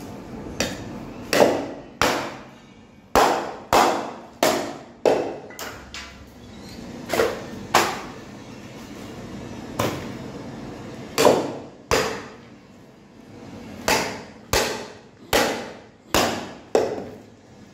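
Meat cleaver chopping through a rack of ribs on a round wooden chopping block: about twenty sharp blows at an uneven pace, with a pause of a couple of seconds midway.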